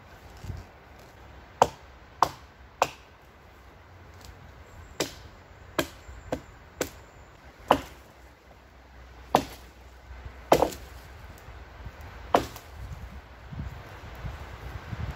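Small axe chopping wood on a fallen tree: about eleven sharp strikes at uneven intervals, sometimes a few in quick succession, then a gap.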